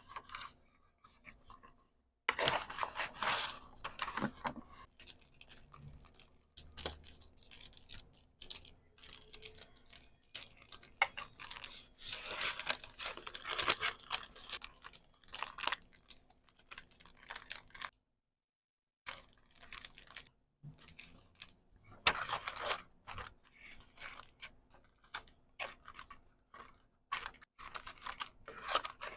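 Close-up order-packing sounds: packaging material crinkling and rustling, with sharp clicks and taps, in irregular handling strokes that stop dead briefly twice.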